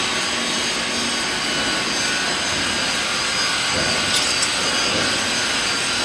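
Reactor agitator drive running steadily on a water trial: an even mechanical whir with faint high-pitched whining tones, and a brief low knock about four seconds in.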